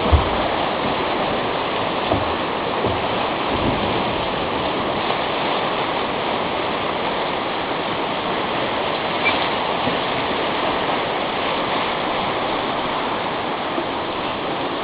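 River whitewater rushing steadily as a drift boat runs a rapid, with a few low thumps in the first four seconds, the first and loudest right at the start.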